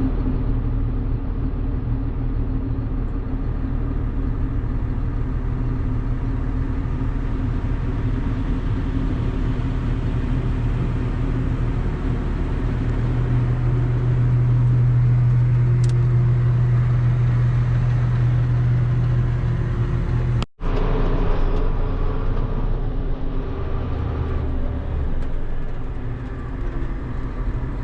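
John Deere farm tractor's diesel engine running steadily, its low drone growing louder for several seconds about halfway through as it takes more load, and cutting out for an instant soon after.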